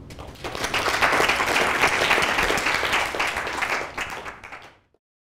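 Audience applauding, building up within the first second and then dropping away abruptly near the end.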